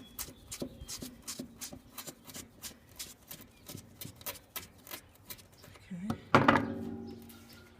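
Rapid, even clicking, about five to six a second, from a screwdriver working out the last screw of a window air conditioner. About six seconds in, a sudden louder sound rings on for about a second.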